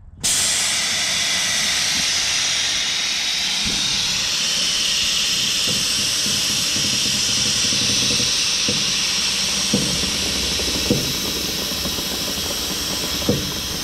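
Air-ride suspension on a 1986 Peterbilt 359 being dumped: the air bags exhaust through the dump valve in a loud, steady hiss that starts suddenly. The hiss goes on while the truck settles, with a few light knocks in the second half.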